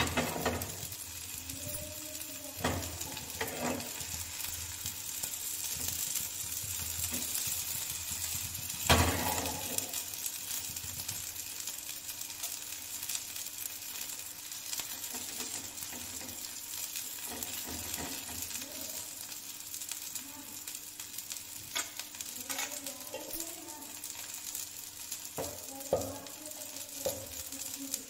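Potato, mushroom and soya tikkis frying on a flat iron tawa and in a pan over a gas flame: a steady sizzling hiss. A few sharp knocks break it, the loudest about nine seconds in.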